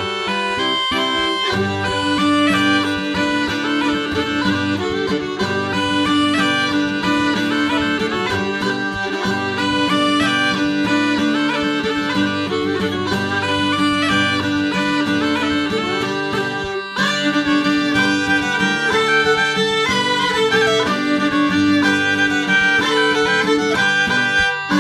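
Instrumental Estonian labajalg folk dance tune: a melody over a steady held drone note, with a short break about two-thirds of the way through.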